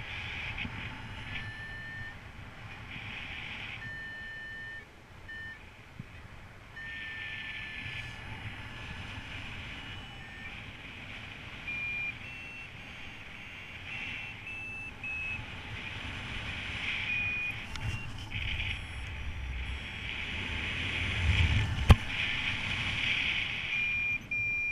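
Paragliding variometer beeping in short steady tones whose pitch steps from lower near the start to higher from about halfway on, over steady wind rush and low buffeting on the microphone. There is one sharp click a few seconds before the end.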